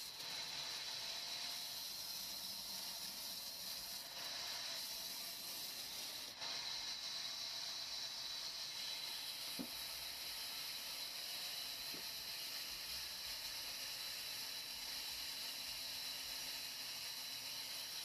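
Large sawmill band saw cutting lengthwise through a log slab: a steady hiss of the blade running through the wood.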